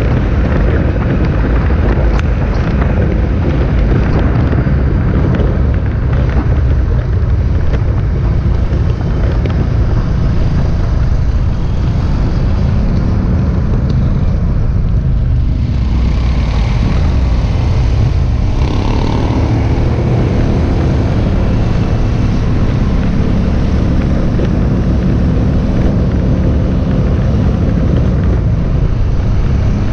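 A long stream of motorcycles riding past in a procession, many engines running together in a loud, continuous din.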